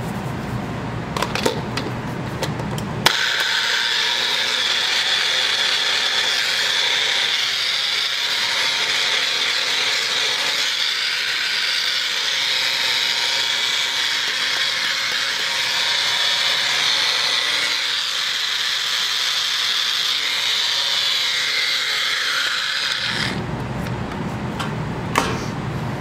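Magic Bullet personal blender grinding dry salt in its plastic cup. A few clicks and knocks as the cup goes onto the base, then a steady high whir starts suddenly about three seconds in and cuts off about twenty seconds later.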